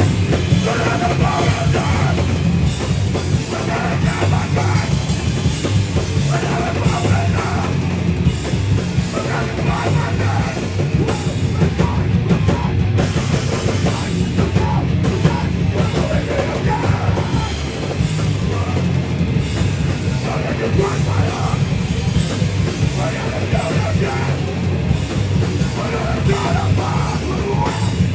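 Live heavy band playing: distorted guitars, bass and a pounding drum kit, loud and continuous.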